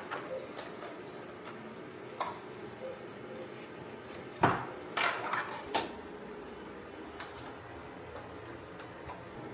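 Hard plastic knocks and clacks from handling a 3D-printed mask while putting it on: a few scattered light clicks, with the loudest knock about four and a half seconds in and two smaller ones just after it.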